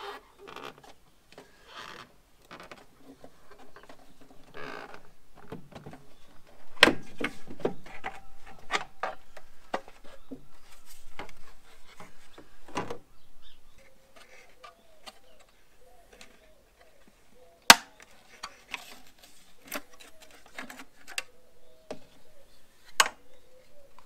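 Plastic clicks, knocks and rattles of a Mk7 Ford Transit's rear light cluster being unclipped and pulled out of the van body. The handling is busiest between about 7 and 13 seconds in. There are several sharp snaps, the loudest about seven seconds in and others near 18 and 23 seconds.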